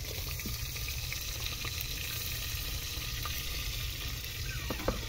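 Sliced onions sizzling steadily as they fry in hot ghee in a pot.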